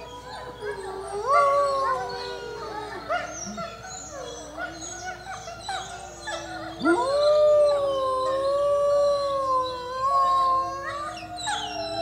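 Wolf pack howling and whining close up, several howls overlapping with more distant wolves. One loud howl starts with a sharp upward swoop about seven seconds in and holds steady for about three seconds, amid shorter, higher whines and yips.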